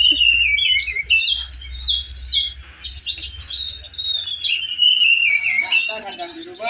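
Oriental magpie-robins (kacer) singing in contest cages: a continuous, rapid run of varied whistled and chattering notes, many of them sliding down in pitch.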